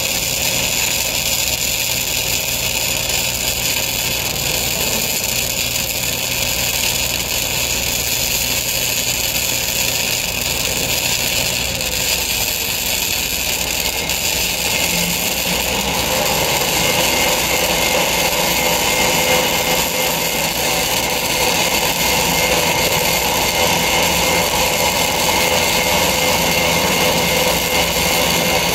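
Flux-cored wire-feed welding arc burning continuously as a 5/16 fillet bead is run on a steel gusset plate, a steady hiss with a low hum underneath. About halfway through it grows a little louder and fuller.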